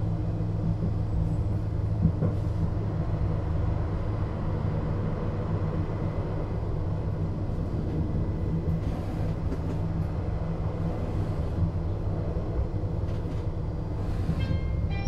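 Duewag B80C Stadtbahn light-rail car running, a steady low drone from its drive and running gear with a few scattered clicks. A brief higher ringing tone comes near the end.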